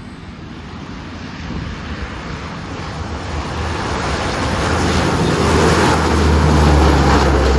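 Lockheed C-130 Hercules four-engine turboprop on landing approach, its low propeller drone and engine roar growing steadily louder as it closes in and passes near, loudest close to the end.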